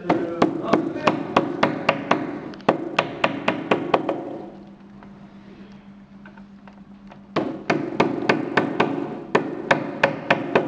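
Hammer tapping pins into the holes of a stand panel: a quick run of sharp, even knocks, about three or four a second, a pause of about three seconds, then a second run.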